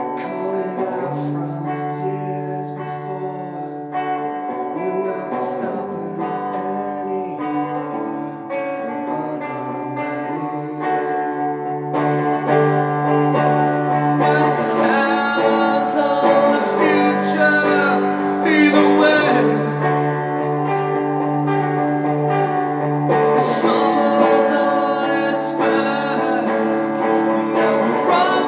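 Solo electric guitar playing sustained chords, joined by a man's singing about twelve seconds in, where the music gets louder.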